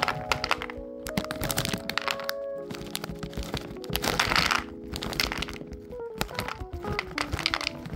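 Mixed nuts poured from a red container into a blue plastic bowl, clattering as a rattle of many small hard knocks that comes in several spells. Background music with held notes plays under it.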